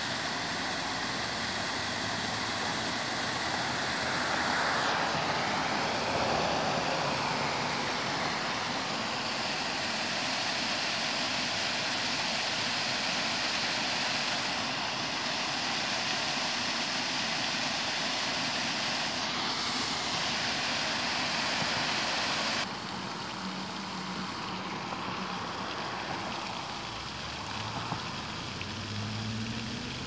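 Steady rush of a small stone waterfall splashing into a pond. About 23 seconds in it changes suddenly to the quieter, softer splashing of an Otterbine Sunburst floating fountain's spray falling back onto the pond surface.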